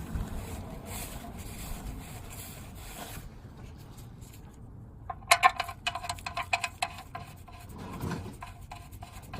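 Rubbing and wiping at the oil drain plug, then about five seconds in a quick run of sharp metallic clicks and rattles as the drain plug is put back in.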